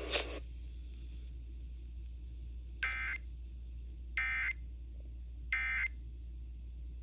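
Emergency Alert System end-of-message code on the radio: three short bursts of screechy digital data tones, about 1.4 seconds apart, marking the end of the warning. A steady low hum runs underneath.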